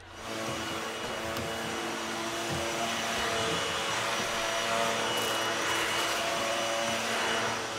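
Vacuum cleaner running steadily, a loud motor whine over rushing air, switching on abruptly at the start.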